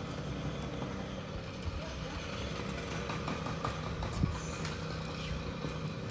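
Steady low background hum of room noise, with a faint knock about four seconds in.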